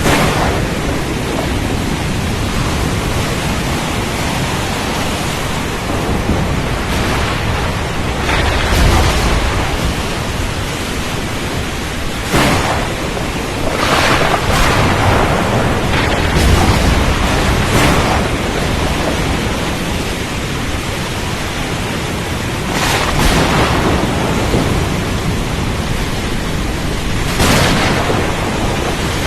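Storm at sea: a steady, loud rush of wind, rain and water, with louder surges every few seconds and deep low rumbles now and then.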